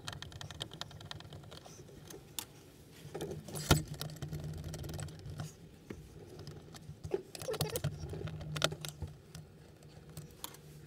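Small clicks, taps and rattles of hand tools and plastic trim being handled while the skylight's inner frame is unscrewed, with one sharp knock about four seconds in, over a steady low hum.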